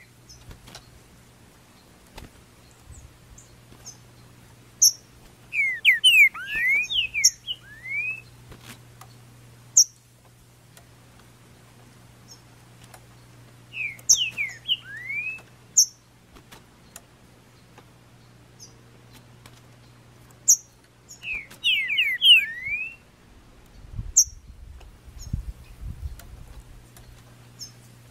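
Green-winged saltator (trinca-ferro) singing: three loud phrases of quick whistled notes about seven seconds apart, with short high chirps between them.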